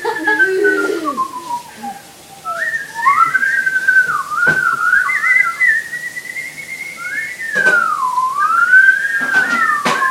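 A person whistling through the lips in long sliding notes. The pitch first falls slowly, then after a short break wavers up and down with a deep dip and rise later on.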